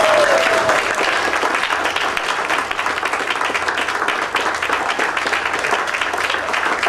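Audience applauding steadily, a dense spread of many hands clapping, with a voice calling out briefly at the very start.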